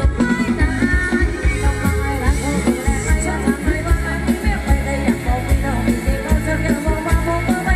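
Live band playing upbeat Thai ramwong dance music, with a steady driving beat and a voice singing the melody.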